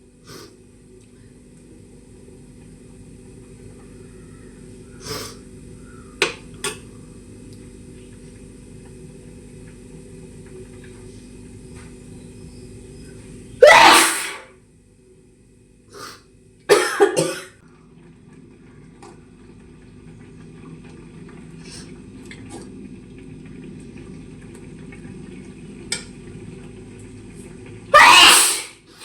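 A woman coughing hard in short fits, her throat irritated by the masala spice powders. There is one loud cough about fourteen seconds in, two or three quick ones a few seconds later, and another near the end, over a steady low hum.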